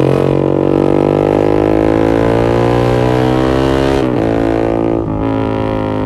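Yamaha MX King 150's single-cylinder four-stroke engine through an X1 Speed Racing SH-01 full aftermarket exhaust, pulling hard with its pitch climbing for about four seconds. It breaks briefly about four and five seconds in, as the rider shifts up.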